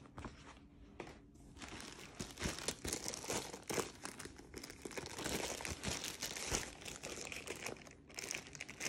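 Thin clear plastic bag crinkling as it is handled around a rolled diamond-painting canvas, a steady run of crackles that builds about a second and a half in.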